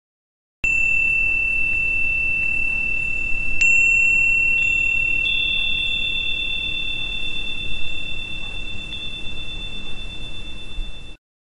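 Added chime-like sound effect: a steady high ringing tone that starts abruptly, with a second, higher tone joining around four to five seconds in and a few faint ticks along the way; it cuts off suddenly near the end.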